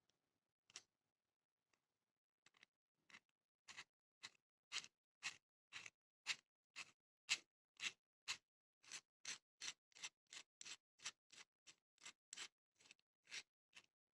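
A run of sharp, quiet clicks, about two a second, starting a couple of seconds in.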